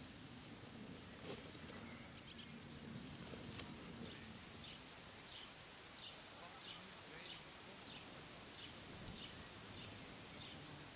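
Faint open-field ambience with a bird giving short, high, falling chirps about twice a second from about four seconds in. Two brief airy swishes come about one and three seconds in.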